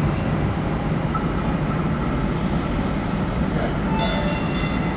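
DART light rail trains running through the station: a steady low rumble, with a brief high tone about four seconds in.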